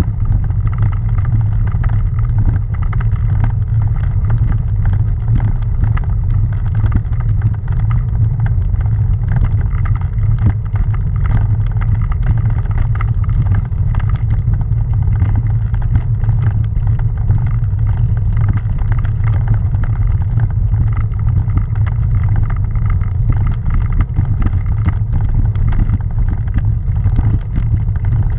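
Bicycle rolling slowly uphill over a cobblestone road, heard through a camera mounted on the bike: a steady low rumble with constant fine rattling clicks from the cobbles shaking the bike and mount.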